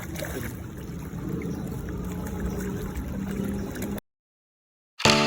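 Steady outdoor noise with a low rumble and a faint hum, cut off abruptly about four seconds in. After a second of silence, a chiming musical tone starts near the end.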